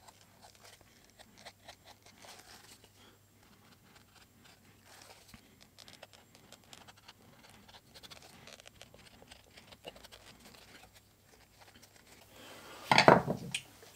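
Mora Companion knife blade shaving thin slivers off the welted edge of a stitched leather sheath: a run of faint, scratchy little cuts. Near the end, a single loud clatter of something hard knocking on the workbench.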